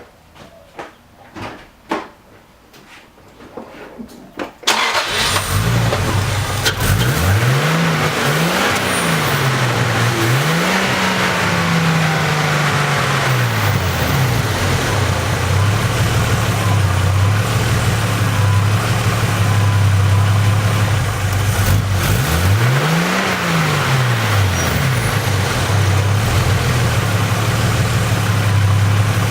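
A few light clicks, then a turbocharged engine with a Garrett 60-trim T4 turbo starts abruptly about five seconds in. It idles steadily and is blipped several times, the revs rising and falling. The turbo has a lot of radial and axial shaft play and needs a rebuild.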